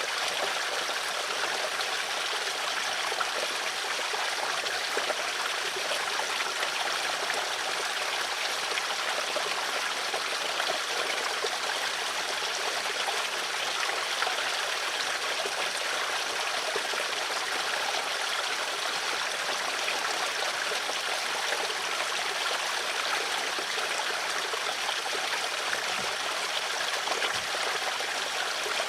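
Flowing water running steadily, an even rush with no breaks or changes.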